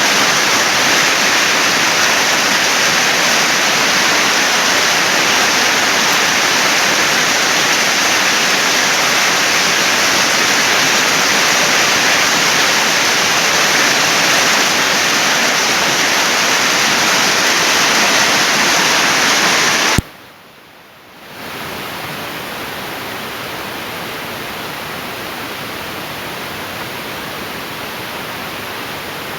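Heavy storm rain pouring down in a steady loud rush. About two-thirds of the way through it cuts off sharply for about a second, then resumes quieter.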